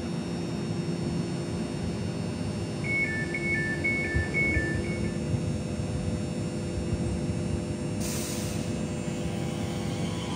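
Elizabeth Line Class 345 electric train standing at the platform with a steady hum from its on-board equipment. About three seconds in comes a short run of alternating two-tone beeps, the door-closing warning. Near the end there is a brief hiss of air.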